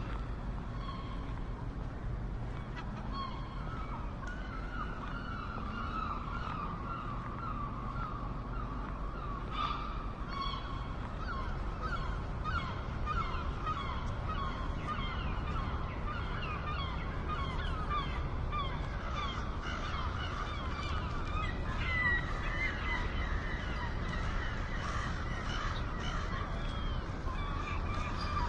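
A flock of seagulls calling together: a continuous din of many short, overlapping cries over a steady low rumble.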